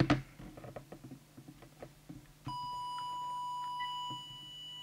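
Small clicks and rattles of handling, then about halfway through an audio test oscillator switches on with a steady, high-pitched test tone. This is the signal fed to the CB transmitter's modulation for setting its FM deviation.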